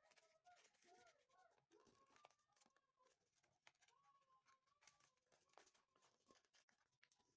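Near silence: faint crinkling and rustling of origami paper being creased and folded by hand, with some faint wavering tones in the background.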